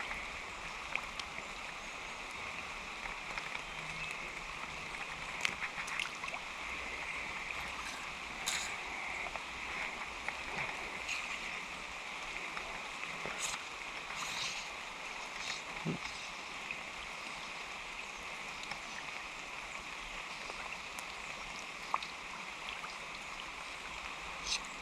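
Creek water running steadily, an even rushing hiss, with scattered brief clicks and ticks over it.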